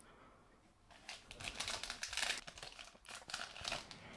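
Light rustling and rapid small clicks of trading cards and a foil card pack being handled as the pack is opened. The patter starts about a second in.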